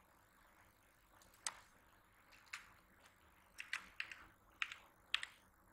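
Computer keyboard keys typed slowly and unevenly: about nine separate sharp clicks, two in the first half and most of them bunched in the second half, over a faint hiss.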